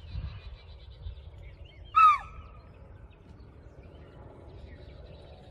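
A single short, loud animal call about two seconds in, dropping in pitch at its end, over a faint low rumble.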